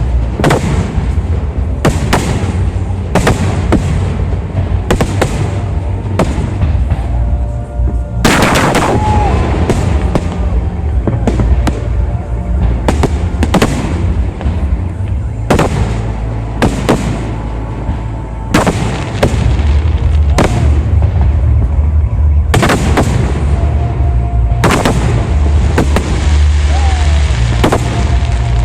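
Fireworks display: shells bursting in quick succession, roughly one a second, over a dense low rumble of booms. A few short tones and gliding whistles sound between the bursts.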